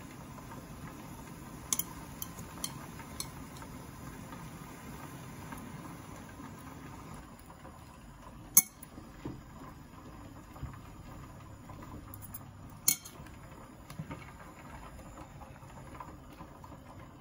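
Metal chopsticks clinking against a plate while food is arranged: a few light clicks about two seconds in, then two sharp clinks, one just past the middle and one about thirteen seconds in, over a low steady hum.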